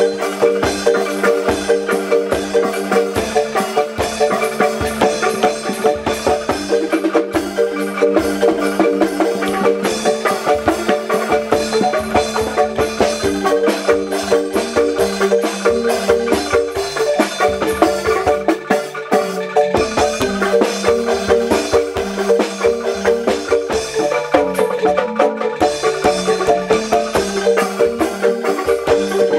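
Background music: a marimba-style mallet-percussion tune over a steady beat.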